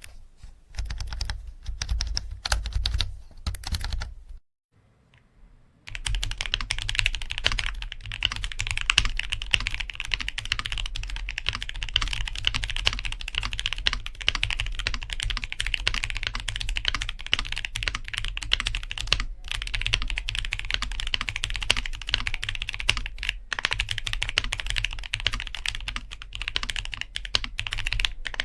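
Fast, continuous typing on a mechanical keyboard fitted with Akko V3 Penguin tactile silent switches. The keystrokes stop for about a second and a half around four seconds in, then resume.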